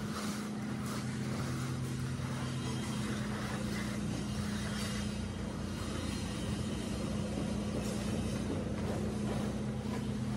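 A motor running steadily nearby, a constant low hum under a faint hiss, with soft scraping as a straightedge is drawn through wet cement mortar.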